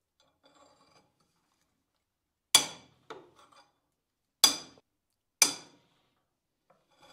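Three sharp metallic clanks with a brief ring, the second and third about a second apart, and a fainter clink just after the first: a steel pipe used as a cheater bar on an Allen key, working loose the very tight screws of a motor adapter plate.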